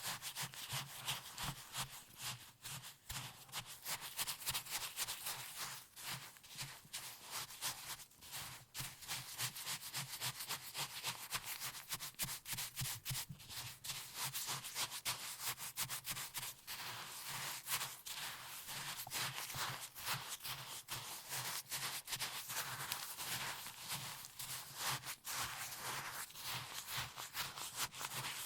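Close-up rubbing and scraping of hands working food by hand: a dense, continuous run of short, gritty strokes.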